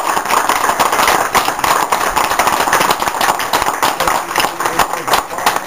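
A small group applauding: many hands clapping steadily.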